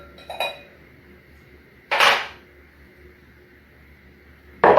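A fork clinking lightly against a bowl a couple of times as egg-beating ends, then two short, louder clattering sounds about two and a half seconds apart, like the bowl and utensil being handled and set down.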